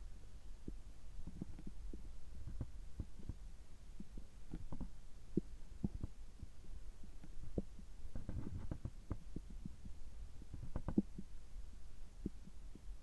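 Human stomach gurgling right after a gastroscopy: a steady low hum with many short pops and gurgles, bunched about eight and eleven seconds in.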